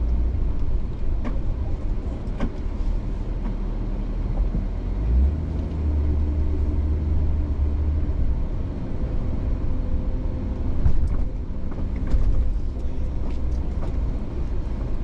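Camper van driving, a steady low rumble of engine and road noise heard from inside the cabin.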